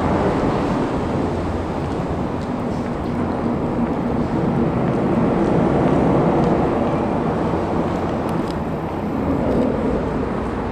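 Steady rumble of city road traffic, with engine drone swelling around the middle and again near the end.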